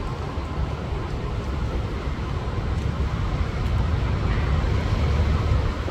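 Strong storm wind blowing across an outdoor microphone: a low, rumbling buffet of wind noise with a hiss above it, growing a little louder about three and a half seconds in.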